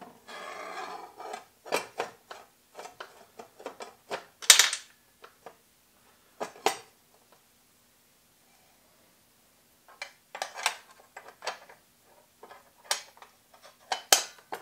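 Metal clicks, clinks and knocks of a miter saw blade being swapped: the blade, flange and arbor hardware of a Ryobi sliding miter saw handled and fitted. One sharp clank about four and a half seconds in is the loudest, with a brief rustle at the start and a run of clicks near the end.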